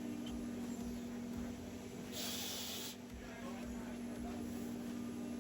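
Steady low machine hum, with one short hiss of air lasting under a second about two seconds in.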